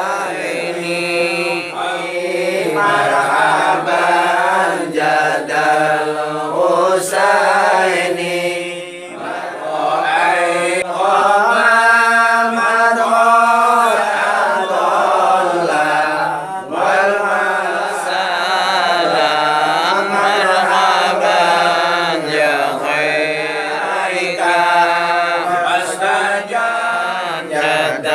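A group of voices chanting an Islamic devotional song (sholawat) together in one slowly gliding melody, with a brief dip about nine seconds in.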